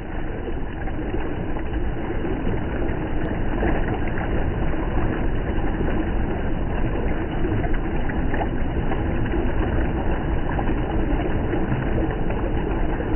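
River water rushing over a stretch of white water: a steady, unbroken rush with a deep low rumble beneath it.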